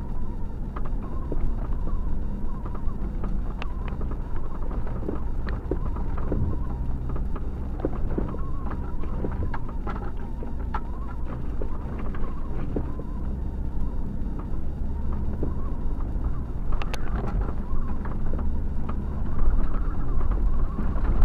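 A car driving over rutted beach sand, heard from inside the car: a steady low engine and tyre drone with frequent small knocks and rattles as it jolts over the ruts.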